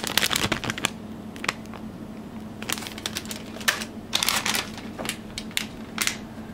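Metallic anti-static bag crinkling as it is handled, in irregular bursts of crisp crackle.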